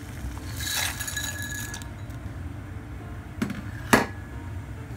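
Dry rotini pasta poured from a bowl into a pot of water: a brief rush of pasta sliding in about a second in, then two sharp clinks near the end, the second the loudest. A steady low hum runs underneath.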